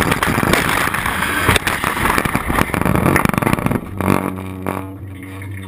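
Shopping cart rattling and clattering as it rolls fast down a bumpy, leaf-covered slope. About four seconds in it crashes onto its side with a thump, the rattling stops, and a steady low hum remains.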